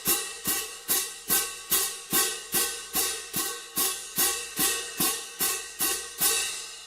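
A cymbal struck in a steady, even rhythm, about two and a half hits a second. Each hit rings bright and metallic into the next. The strikes stop near the end and the ring fades away.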